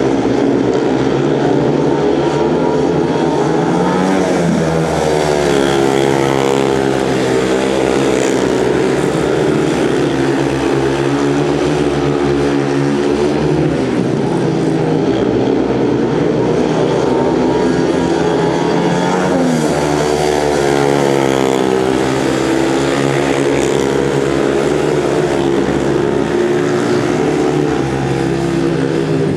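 500 cc single-cylinder speedway motorcycle engines racing around the oval, their note rising and falling over and over as the riders open the throttle on the straights and ease off through the turns.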